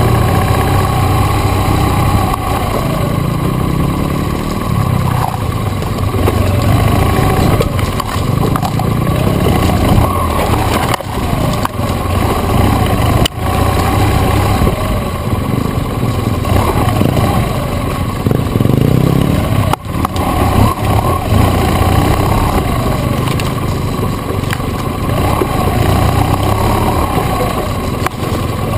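BMW GS adventure motorcycle engine running under way off-road, its revs rising and falling every few seconds, with a few sharp knocks over the ride.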